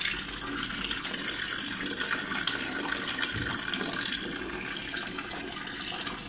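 Water pouring in a steady stream from a hose pipe into a part-filled plastic tub, splashing as it fills.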